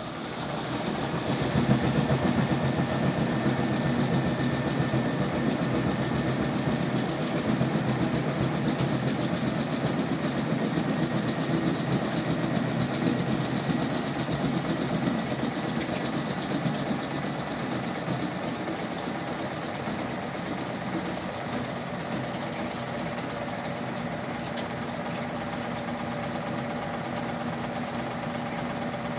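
Hajdú Energolux top-loading washing machine on its spin, the motor and drum coming up to speed over the first couple of seconds and then running steadily. After about 18 seconds it eases slightly and a steady hum comes through.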